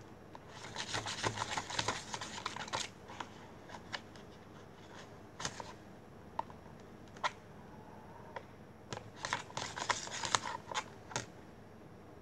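Plastic spoon stirring sticky glue slime in a plastic tub: quick runs of scraping and clicking against the plastic, one about half a second in and another about nine seconds in, each lasting roughly two seconds, with single clicks in between.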